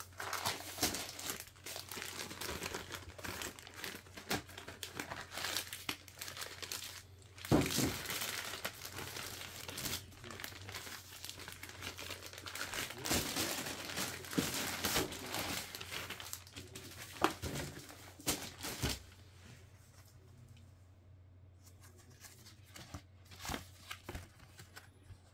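Packaging crinkling and crackling as it is handled and pulled off, dense and busy, then dying down to a few scattered handling clicks about nineteen seconds in.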